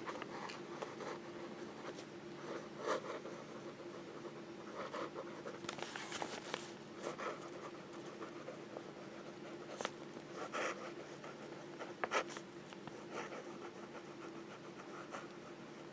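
Volcano Lake fountain pen's nib scratching lightly across paper in cursive handwriting, in short irregular strokes with brief pauses between letters. A faint steady hum runs underneath.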